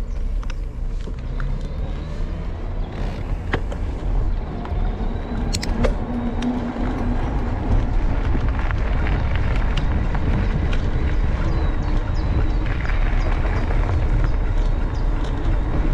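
Mountain bike rolling along a gravel towpath: wind rumbling across the camera microphone, with small rattles and clicks from the tyres and bike over the ground. It gets louder about halfway through.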